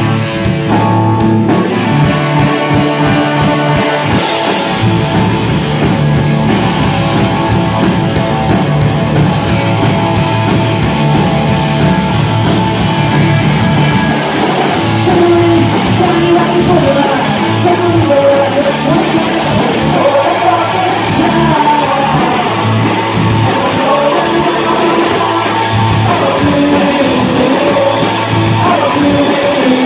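Live rock band playing loudly: electric guitars, bass guitar, keyboard and drum kit, with a sung vocal line that comes in about halfway through.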